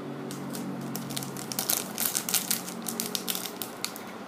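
Foil wrapper of a trading-card booster pack crinkling and crackling in the hands as it is picked up and handled, the crackles irregular and getting louder from about a second and a half in.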